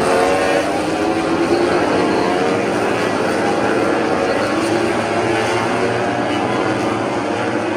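Several MotoGP racing motorcycles passing at high revs, their four-cylinder engine notes overlapping and their pitch sliding down and then up again as the bikes brake into a corner and accelerate out.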